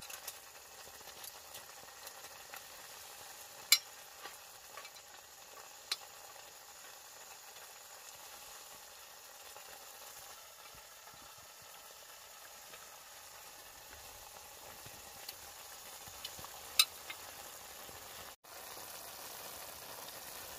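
Pasta and tomato simmering in an enamel pot on a stove, with a steady sizzling hiss, while a metal spoon stirs it and clinks against the pot three times, the first clink the loudest.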